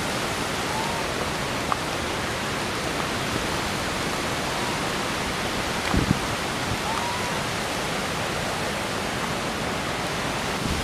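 Steady, even rushing background noise, with a few faint short chirps, a couple of light clicks and a soft knock about six seconds in.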